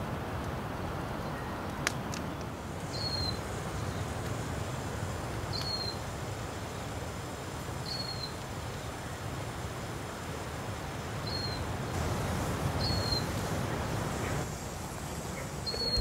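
Evening outdoor ambience beside a wood campfire: a steady low rush with one sharp crack from the fire about two seconds in. Over it a bird gives a short high chirp six times, every two to three seconds.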